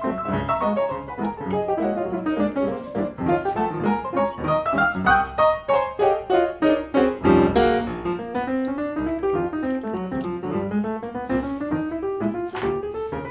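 Background piano music, with flowing runs of notes climbing and descending.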